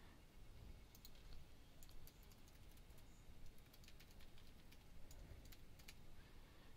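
Faint typing on a computer keyboard: irregular, quick keystroke clicks.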